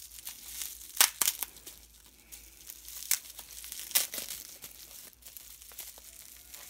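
Clear plastic wrapping crinkling as hands pull it off a hatching egg, with several sharp crackles, the loudest about a second in and again about four seconds in.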